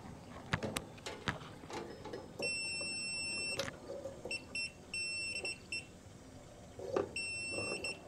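Digital multimeter's continuity beeper sounding as the test leads touch the RV water heater's spark probe: a few faint clicks of the probes, then one steady high beep of about a second, followed by several shorter, broken beeps as the contact makes and breaks. The beep shows good continuity through the cracked igniter.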